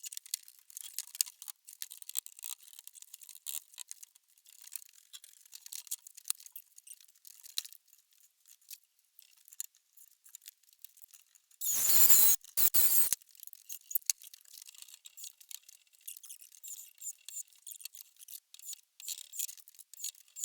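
Scattered small clicks and taps from hand work on a wooden cupboard, with a loud burst of noise in three quick parts about twelve seconds in.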